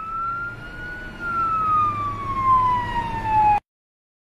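Ambulance siren wailing: one slow rise and then a long, gradual fall in pitch, over a low steady hum. It cuts off suddenly about three and a half seconds in.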